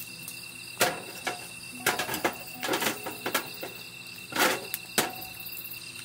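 Insects singing steadily, with a run of sharp knocks and clatters from camp cooking gear being handled and set down during dinner preparation.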